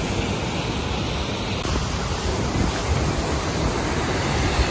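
Mountain creek cascade: whitewater rushing over granite boulders in a loud, steady wash of noise.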